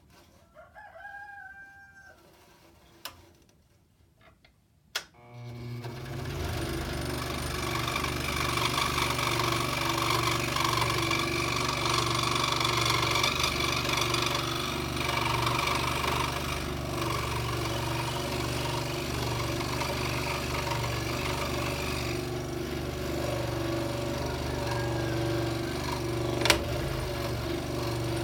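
A scroll saw starts about five seconds in and then runs steadily, its motor humming under the rapid reciprocating chatter of the blade. Before it starts there are a couple of sharp clicks.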